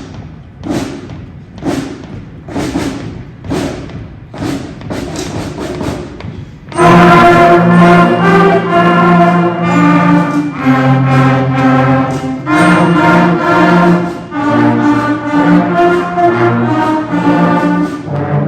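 Instrumental band music: a run of separate, drum-like hits, then about seven seconds in a loud passage of held brass chords.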